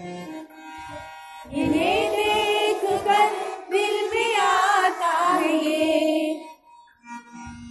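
A voice sings a line of the Urdu nazm in a drawn-out, wavering melody, starting about a second and a half in and stopping about a second before the end. Soft instrumental background music plays throughout.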